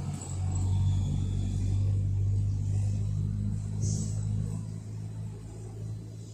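A steady low engine hum, easing somewhat in the second half.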